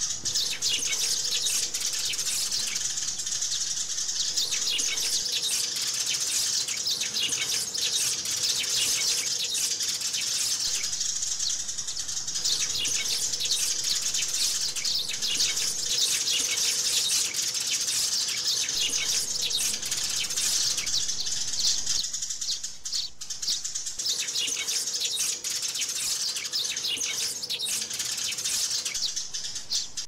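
A flock of sparrows chirping all at once, a dense, unbroken chatter of overlapping high chirps that thins briefly about three-quarters of the way through.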